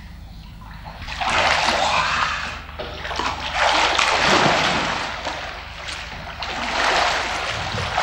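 A swimmer's strokes splashing and sloshing water in a swimming pool, in three surges a couple of seconds apart.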